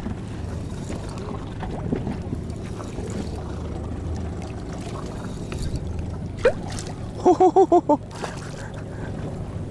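Steady low rumble of a small boat riding on the sea, with water and wind noise. About seven seconds in comes a quick run of five short pitched pulses, preceded by a brief rising tone.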